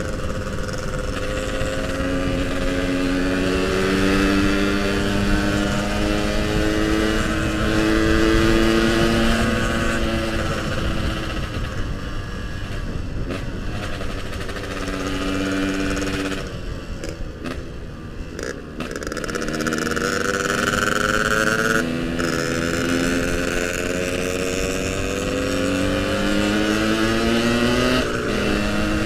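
Yamaha RX-King two-stroke single-cylinder motorcycle engine under way, its pitch rising and falling with throttle and gear changes. About two-thirds of the way through it drops off briefly and runs rougher before climbing again.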